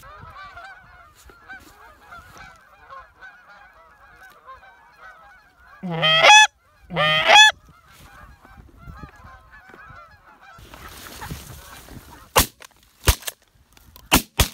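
A flock of Canada geese honking at a distance, with two loud, close honks about six and seven seconds in. Near the end come several shotgun shots in quick succession as the hunters fire at geese flying over the decoys.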